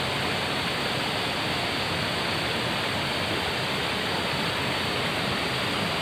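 Steady rushing of water from a small waterfall pouring into a rock pool.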